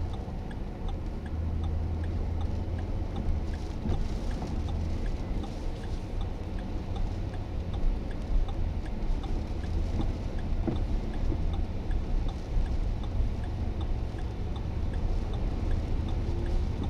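Strong thunderstorm winds with heavy rain, a steady low rumble and hiss with gusts rising and falling, and faint regular ticking underneath.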